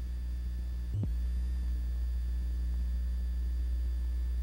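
Steady low electrical hum on a blank stretch of an old recording, with faint high steady tones above it and a short click about a second in.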